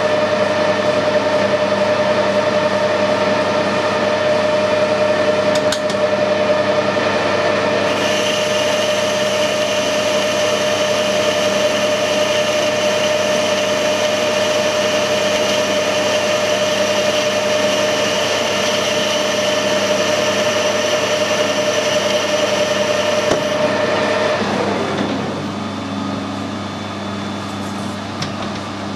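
Metal lathe running while a boring bar cuts inside the bore of a bearing housing, a steady machining sound. About 25 seconds in the cut ends and the sound drops to the lathe running more quietly.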